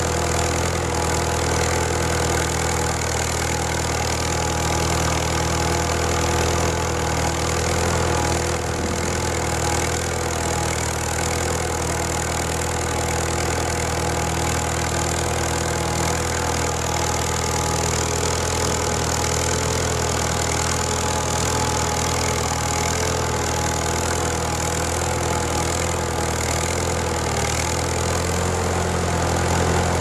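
Fordson New Performance Super Major's four-cylinder diesel engine running steadily under load while pulling a plough.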